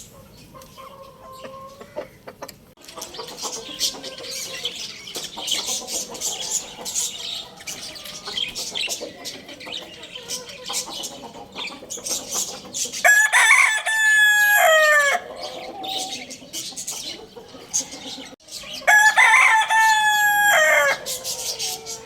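A rooster crowing twice, each crow about two seconds long, the first about thirteen seconds in and the second about six seconds later. Underneath are chicken clucking and other bird calls.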